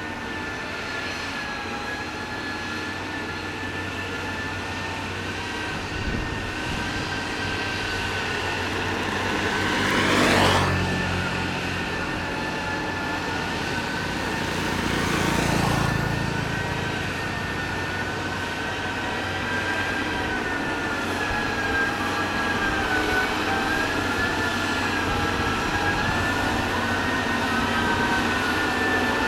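Motor grader's diesel engine running steadily with a wavering whine, swelling louder twice, about ten and fifteen seconds in.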